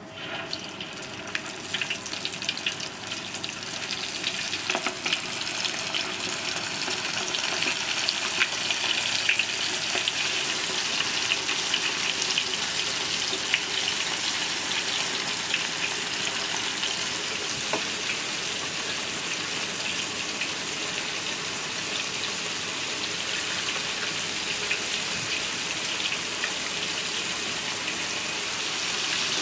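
Food frying in hot oil: a dense sizzle full of small crackles. It starts suddenly, builds over the first few seconds, then holds steady.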